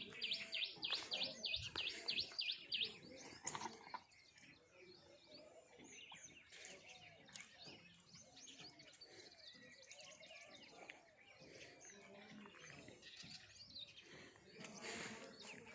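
A bird gives a quick series of about nine repeated high chirps, about three a second, over the first three seconds. Fainter scattered bird chirping follows.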